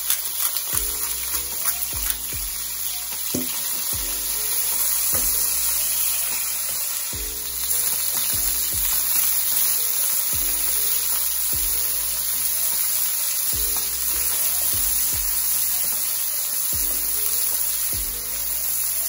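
Sliced chicken breast sizzling steadily in hot oil in a frying pan, stirred and turned with a slotted spatula.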